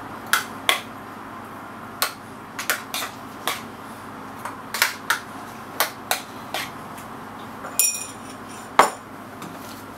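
Kitchen utensils and dishes being handled: about fifteen irregular sharp clicks and knocks, with a brief ringing clink near eight seconds and the loudest knock about nine seconds in.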